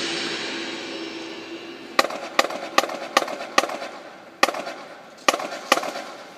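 A marching band's last hit ringing out and fading away, with bright cymbal-like shimmer dying off over the first two seconds. Then sharp clicks, five at an even pace of about two and a half a second, followed by a few more spaced irregularly.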